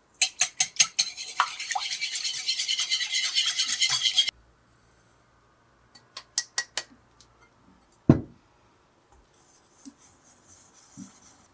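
Rapid rhythmic scraping strokes, several a second, that stop abruptly a little after four seconds; then a few light clicks and a single knock about eight seconds in.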